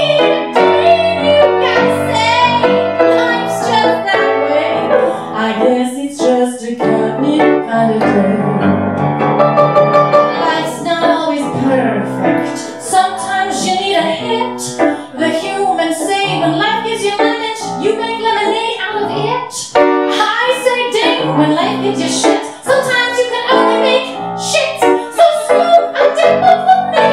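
A woman singing a musical theatre song with piano accompaniment, held sung notes over a busy piano part.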